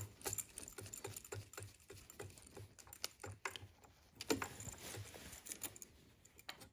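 Faint, irregular clicks and small taps of a screwdriver working a terminal screw on an electrical outlet receptacle, tightening a wire down under the screw.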